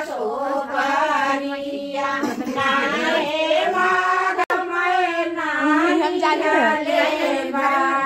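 Women singing a traditional North Indian wedding folk song (shaadi ke geet) in long, wavering held notes, with a momentary break about halfway through.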